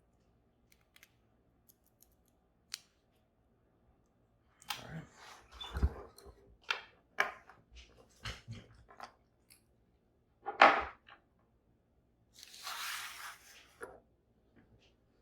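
Small metal lock and tools being handled: scattered clicks and clatters, a louder single click about ten seconds in, then a brief scraping rustle.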